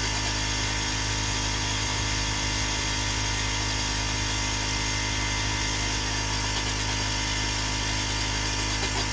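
Combustion burner running steadily on atomized liquid gasoline, fed a lot of compressed air: an even rushing roar with a constant machine hum underneath.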